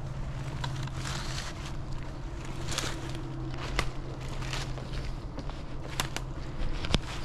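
Footsteps crunching through dry fallen leaves, an irregular rustle with sharp crackles. A steady low hum runs underneath and stops near the end.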